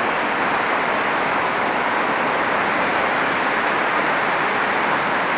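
Steady hiss of street traffic on wet asphalt: car tyres swishing over the wet road, with no single vehicle standing out.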